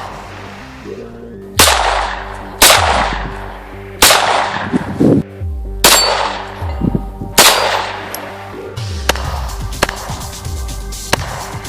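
Five gunshots fired one at a time, about one to two seconds apart, each ringing out after the crack, over electronic background music.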